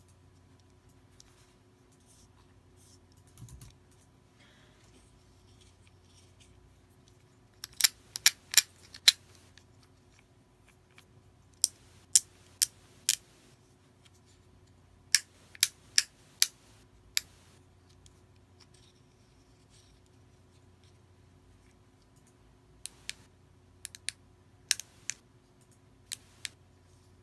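Fidget cube clicking: sharp, typing-like clicks in short runs of four to six, with pauses of a few seconds between runs, the last run lighter.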